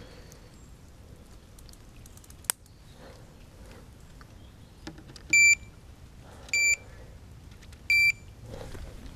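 Electronic bite alarm on a fishing rod rest giving three short, high beeps about a second apart, set off by line moving over its sensor as the drop-off bobbin is clipped on and the line is tightened. A single sharp click comes a few seconds before the beeps.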